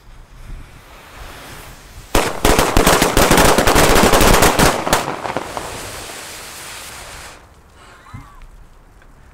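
A bundle of many Funke A-Böller firecrackers tied together going off. The fuse hisses for about two seconds, then a dense, rapid crackle of bangs runs for about three seconds and tails off over the next two.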